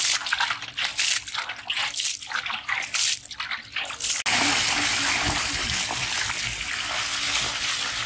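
Water poured from a metal pot splashing over fish in a plastic crate to wash off the mud: irregular splashes at first, then about four seconds in a steady gushing pour.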